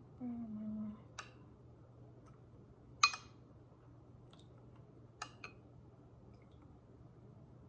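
Ceramic soup spoon clinking against dishes a few times, the loudest clink about three seconds in.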